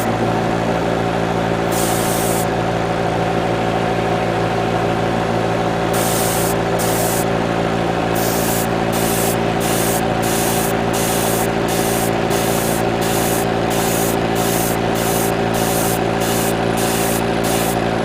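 Airbrush compressor running with a steady hum while the airbrush sprays paint in short hissing bursts. After a pause of a few seconds early on, the bursts come about twice a second.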